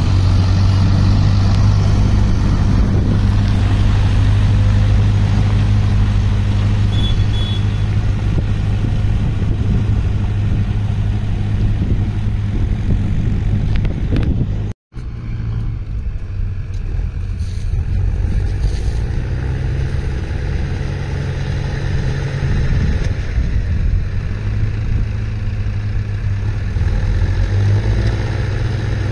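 Tractor diesel engine running steadily under load while hauling a loaded trailer through deep paddy-field mud. The sound cuts out for a moment about halfway, then the engine continues a little quieter.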